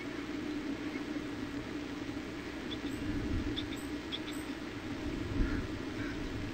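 Steady hiss and low hum of an outdoor nest-camera microphone, with a few faint, very short high chirps about halfway through and a single low thump about five seconds in.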